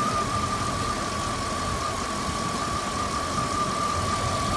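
Jeep Grand Cherokee WJ's 4.7-litre V8 idling slightly rough, with a light stutter and a steady high whine over the engine note. The owner has ruled out vacuum leaks, injectors, plugs, coils, IAC and TPS, and suspects a dragging power steering pump.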